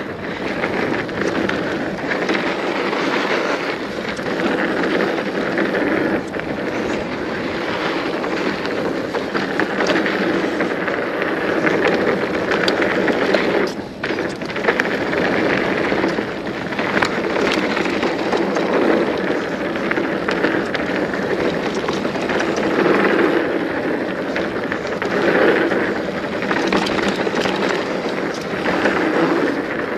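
Hardtail mountain bike riding down a rough trail: a continuous rumble of tyres over dirt and stones, with constant clattering and knocking from the bike over the bumps. It eases briefly about halfway through.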